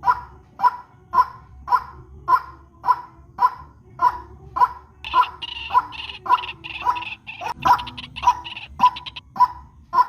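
Recorded white-breasted waterhen (ruak-ruak) calling: a harsh call repeated steadily, nearly two a second. From about halfway to near the end, a higher, rapid chattering runs over the calls.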